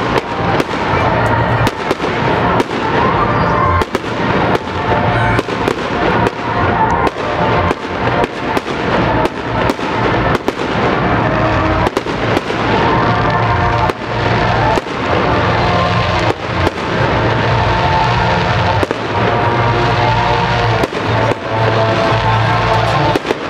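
Fireworks shells bursting overhead: a long run of sharp bangs in quick, irregular succession, one or two a second. Music plays steadily underneath.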